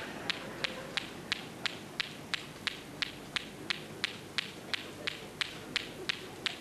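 Clackers (tac-tac) toy: two balls on cords swung so they knock together, a steady clacking of about three knocks a second.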